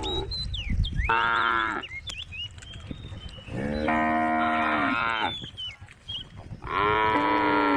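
Cow mooing three times: a short moo about a second in, a longer one in the middle, and a third near the end.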